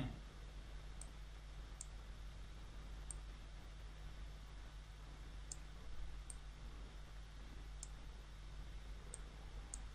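Computer mouse clicking: about eight faint, sharp clicks spaced unevenly, over a low steady hum.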